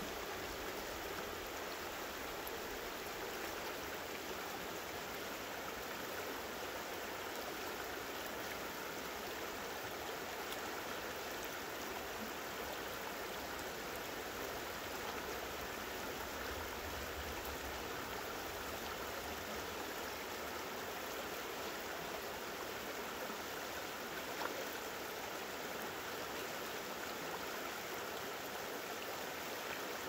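Shallow river flowing over and around rounded boulders in a riffle: a steady, even rush of water.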